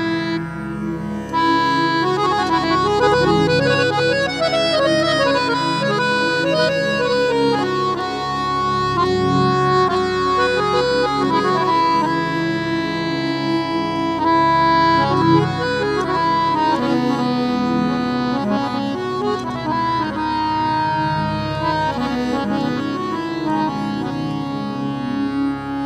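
Harmonium playing a devotional song melody in sustained reedy notes, with tabla accompanying it in a steady rhythm.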